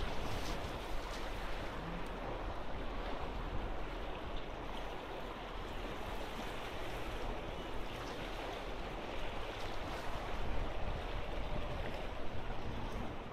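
Small sea waves washing and splashing against shoreline rocks, a steady rushing wash with no pauses.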